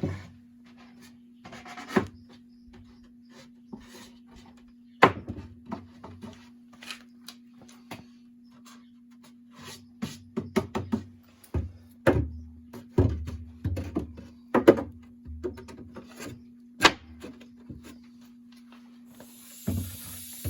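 Irregular sharp knocks and clicks of wooden boards being handled and set in place, some with a dull thud, over a steady low hum. A hiss comes in near the end.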